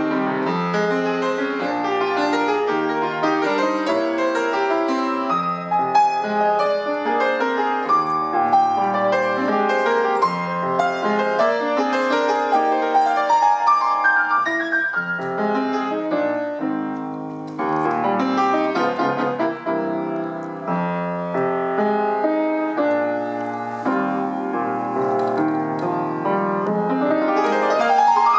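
Solo acoustic piano playing an Argentine folk piece, a gato or zamba, in dense continuous chords and melody. It eases briefly about two-thirds of the way through and ends on a fast upward run.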